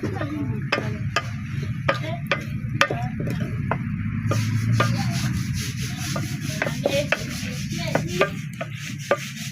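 Rubbing and scraping with irregular sharp knocks, over a steady low rumble.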